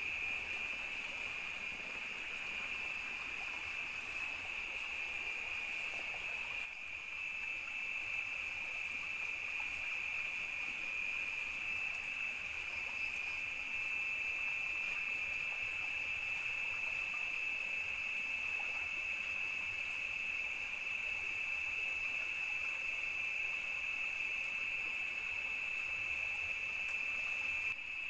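Night-time insect chorus in tropical forest: a steady, high-pitched, unbroken drone.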